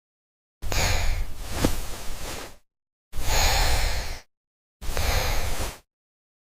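Three breathy, blowing cartoon sound effects: a long one of about two seconds, then two shorter ones of about a second each, separated by dead silence.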